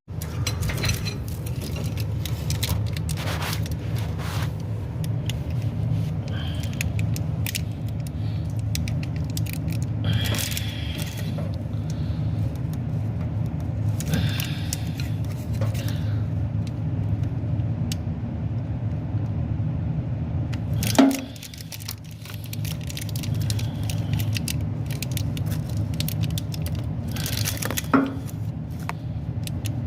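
Steady low engine rumble, with metallic jangling and scraping at intervals as steel wire cable is handled, and two sharp knocks about twenty and twenty-eight seconds in.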